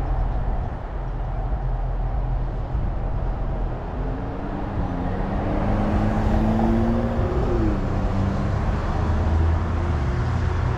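Road traffic: a steady low rumble, with one vehicle's engine note climbing slowly from about four seconds in and dropping away a few seconds later as it passes.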